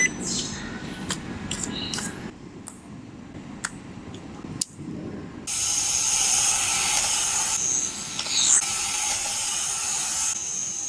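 Small plastic clicks, then about halfway through a cheap toy drift car's small motor and plastic gears start a loud steady whirring with a high whine, stopping abruptly near the end.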